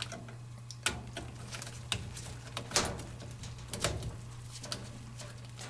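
Scattered light clicks and knocks of hands handling the washing machine's power cord and plug, over a steady low hum.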